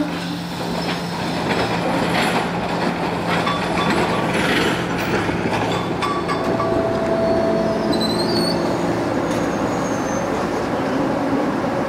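SEPTA Kawasaki K-car light-rail trolley rolling slowly on curved streetcar track, its motors humming steadily, with a few knocks from the wheels over the rails in the first half. The wheels squeal high on the curve about two-thirds of the way through.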